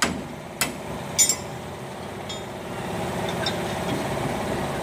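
Metal tools clinking against the steel of a truck wheel hub, three sharp strikes in the first second or so, over a steady low mechanical hum.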